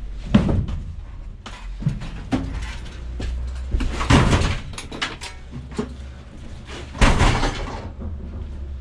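Several loud bangs and clatters, the loudest about four and seven seconds in, over a low steady hum.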